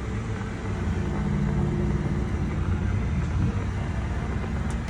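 2006 Mercury Milan's engine running steadily, a low rumble that swells a little in the middle, now that the missing fuses are in: the no-spark no-start was down to the fuses.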